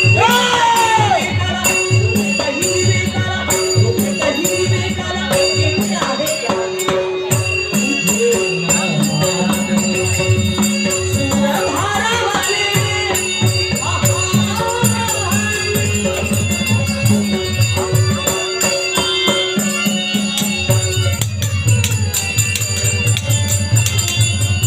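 Marathi folk song: a male voice singing over steady rhythmic rattle percussion and a low beat.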